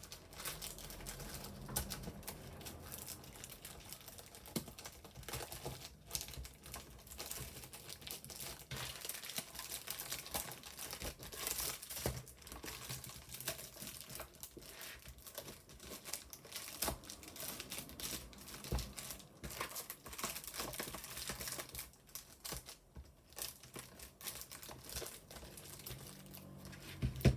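Sticker sheets and paper packs crinkling and rustling as they are packed back into a small cardboard box by hand, with frequent light clicks and knocks of items against the box, a little quieter for a moment near the end.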